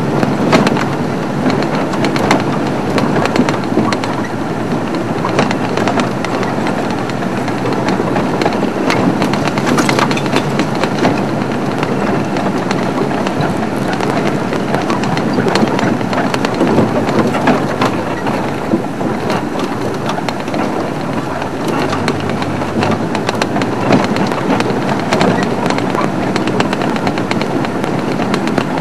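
Open safari vehicle driving along a rough dirt track: steady engine and road noise, with many small rattles and knocks from the bumpy ride.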